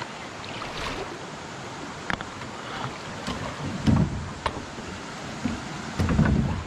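Kayak on moving river water: steady water noise with several sharp knocks and two heavier thumps, about four and six seconds in, of the paddle and hull.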